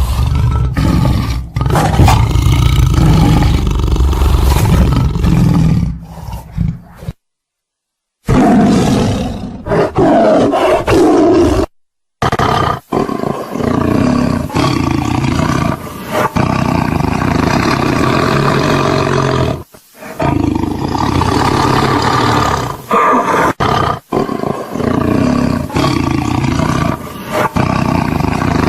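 Tiger roaring and growling over and over, loud, broken by two short dead-silent gaps between spliced clips about seven and twelve seconds in.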